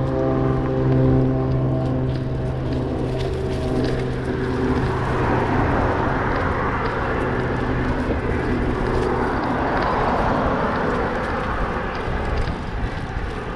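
Road traffic going by. A steady engine hum fades out over the first few seconds, then the rushing noise of passing vehicles swells and eases off again near the end.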